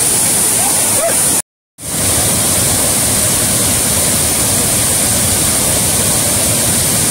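Loud, steady rush of falling water: water pouring over a reservoir's stepped spillway, then, after a brief dropout about a second and a half in, a waterfall pouring over rock ledges.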